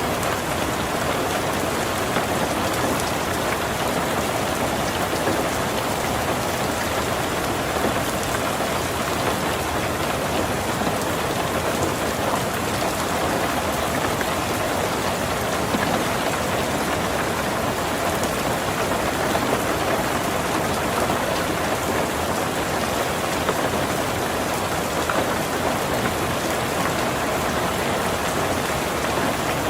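Heavy rain falling steadily on a tin roof, a dense, even patter.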